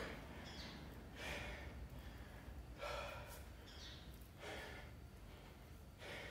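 A man breathing hard while he recovers from a set of push-ups, four heavy breaths about a second and a half apart.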